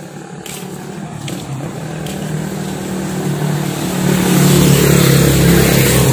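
A motor vehicle's engine running at a steady pitch, growing louder over the first four seconds and then holding loud. Faint ticks about once a second sound in the first two seconds.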